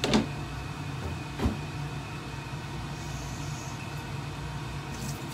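Steady low hum of a kitchen appliance, with two short knocks of cookware on the stove, one at the very start and another about a second and a half in.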